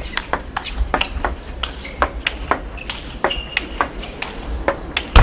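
Table tennis rally: the ball clicks sharply off the paddles and the table in quick succession, several hits a second, with a brief squeak a little past three seconds in.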